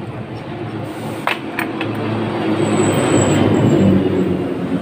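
A heavy truck passing close by on the road: its engine and tyre rumble swells to a peak about three to four seconds in, then starts to fade. A couple of sharp metal clinks come about a second and a half in.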